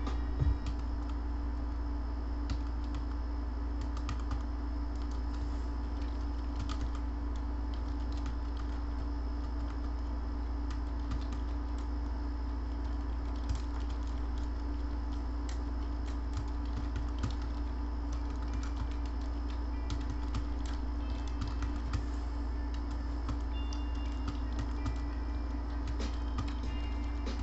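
Typing on a computer keyboard: irregular key clicks over a steady low electrical hum.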